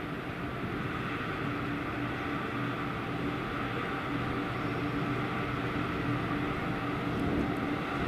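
An engine running steadily with a low hum, slowly growing a little louder.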